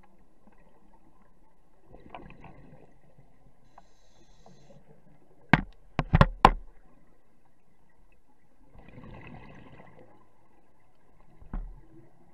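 Underwater recording of a scuba diver breathing through a regulator: a hiss of breath every few seconds. Four loud, sharp knocks come in quick succession near the middle, and one more near the end.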